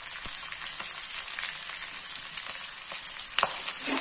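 Cashews, curry leaves, green chillies and grated ginger frying in hot oil in an aluminium kadai: a steady sizzle with small crackles. A short knock comes near the end.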